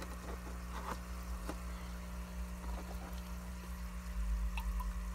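Steady hum of the air pump aerating a deep-water-culture hydroponic reservoir, with faint bubbling of water from the air stone. A few light plastic knocks and a low rumble about four seconds in as a net pot of clay pebbles is handled and lifted from the lid.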